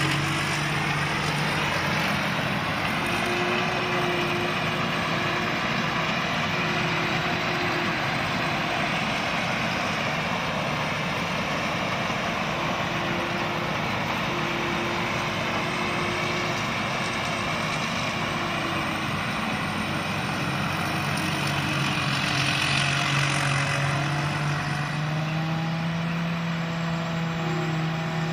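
Combine harvester engine running steadily under a broad mechanical noise, its pitch rising slightly near the end.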